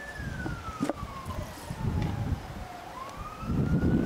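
A siren wailing: one clear tone that falls slowly for about three seconds, then jumps up and begins to rise again. Wind rumbles on the microphone underneath, louder near the end.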